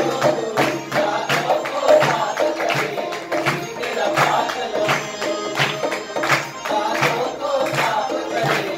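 Devotional song with men singing over an electronic keyboard, a dholak hand drum and hand clapping, keeping a quick steady beat.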